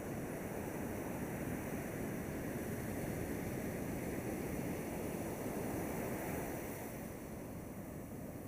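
Ocean surf washing continuously on a beach, a steady rushing wash that eases slightly near the end.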